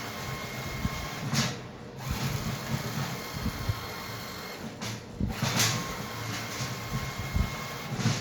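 NEMA 34 stepper motor turning a 1610 ballscrew through a 3D-printed PLA coupling, running with a steady whine over a rough mechanical rattle. It swells louder about a second and a half in and again about five and a half seconds in.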